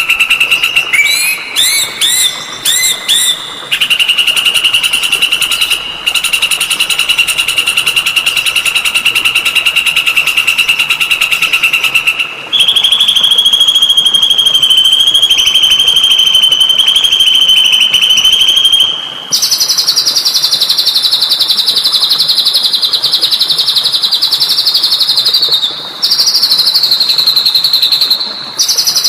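Recorded songbird song used as masteran tutoring material for cage birds: a few short rising chirps, then long, very fast buzzy trills held at one pitch, stepping higher twice.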